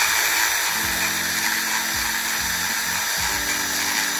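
Cordless drill running steadily with a high whine, its bit reaming out an undersized bolt hole in a plastic fog light housing to enlarge it.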